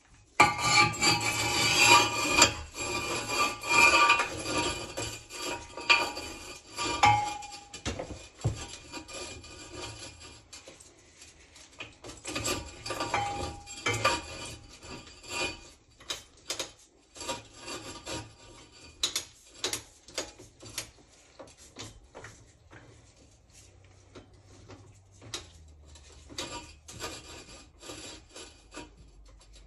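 Steel chain of a Ridgid 246 soil pipe cutter rattling and scraping against a cast iron vent stack as it is wrapped around the pipe. After about eight seconds this gives way to scattered metal clicks and clinks as the chain is hooked into the cutter head and drawn tight.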